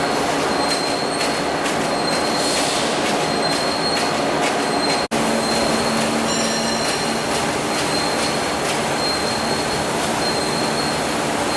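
Steel coil slitting machine running: a steady loud metallic noise with a faint high whine and scattered ticks, and a very brief break about five seconds in.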